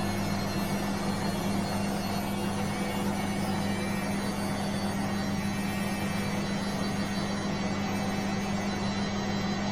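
Bosch washing machine running with a steady, even hum.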